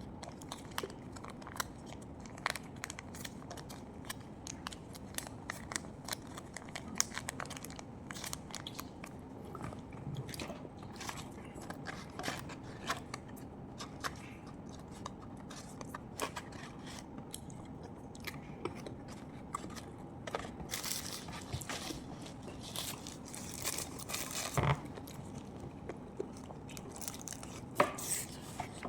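A person eating close to the microphone: chewing and biting with crunching, and many small clicks and scrapes. The clicks grow louder and more frequent about two-thirds of the way in.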